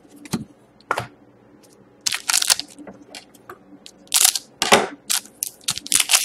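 Foil trading-card pack crinkling as it is cut open with scissors and pulled apart. Two sharp clicks of cards being handled come first, then short rustling bursts, with quick crackling near the end.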